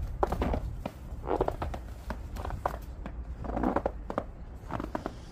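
Irregular footsteps and shuffling movement, with scattered clicks and short scuffing sounds.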